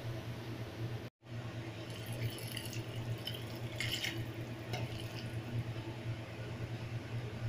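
Noodles and broth poured from a metal pot into a bowl, the liquid splashing, loudest about four seconds in, over a steady low hum.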